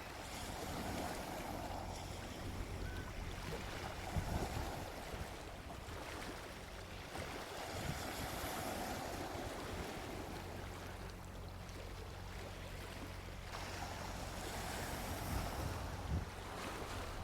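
Gentle sea waves washing onto a beach, swelling and easing every few seconds, over a steady low rumble.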